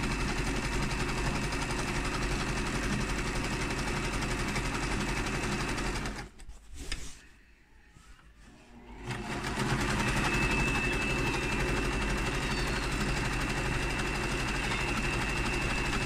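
Electric sewing machine running steadily as it stitches a hem in fabric. It stops about six seconds in, is quiet for about three seconds, then starts again and runs on with a thin high whine on top.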